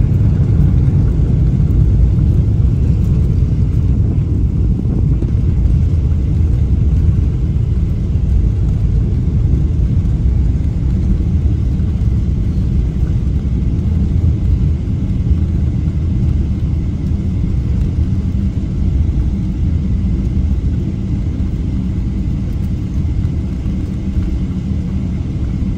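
Airliner cabin noise as the plane rolls along the ground: a steady deep rumble of engines and wheels heard from inside the cabin, easing slightly toward the end.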